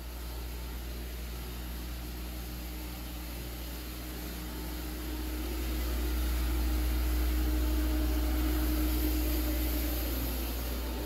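Steady low mechanical hum with a faint higher whine over it, swelling in level from about five seconds in and easing slightly near the end.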